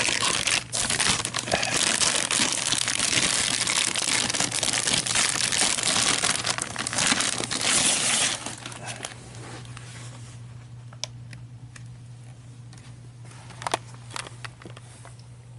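Plastic wrapping crinkling as it is pulled off a new laptop by hand, continuous for about eight seconds, then much quieter with a couple of light taps.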